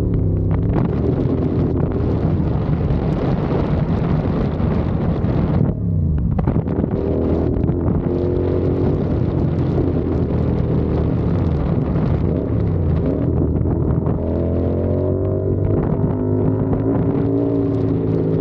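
CFMOTO 450SR's parallel-twin engine and exhaust running on the road, its pitch rising and falling as the rider works the throttle, with a brief easing off about six seconds in. Wind noise on the microphone runs underneath.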